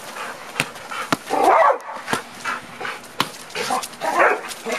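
A dog barking and whining, with the sharp slaps of a volleyball being hit and caught several times.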